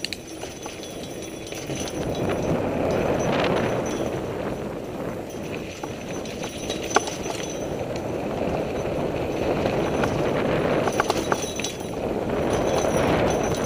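Mountain bike riding over a dirt trail, heard from the bike: a steady rushing of tyre and wind noise that swells and eases, with scattered rattles and sharp clicks from the bike over bumps, one louder knock about halfway through.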